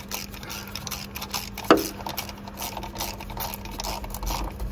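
Ratchet wrench clicking in quick runs as a bolt on a crankcase ventilation filter housing is wound in, with one sharp metallic clink that rings briefly about two seconds in.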